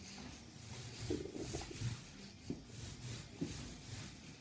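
Paint roller working over a wall: soft, irregular sticky rubbing strokes, with a few light low knocks.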